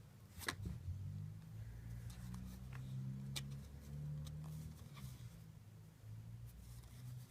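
Yu-Gi-Oh! trading cards being handled and flipped through, giving a few faint, sharp card clicks over a low, shifting hum.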